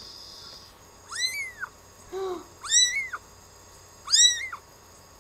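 A tiny kitten mewing: three high mews about a second and a half apart, each rising and falling in pitch, with a lower, shorter call between the first two.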